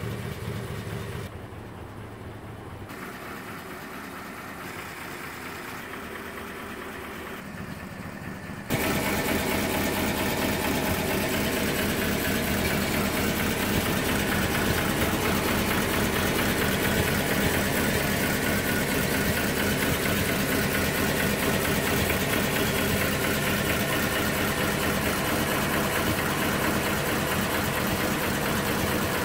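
1935 Ford flathead V8 idling steadily, heard close up from beneath the car. After a quieter stretch, the idle comes in suddenly much louder about nine seconds in and holds even.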